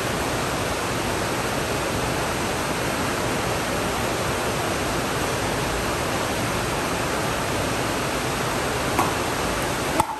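A steady, even hiss throughout, with two sharp pops of a pickleball struck by paddles about a second apart near the end.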